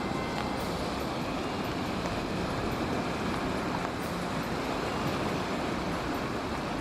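Steady rushing roar of sea surf breaking, with no distinct separate impacts.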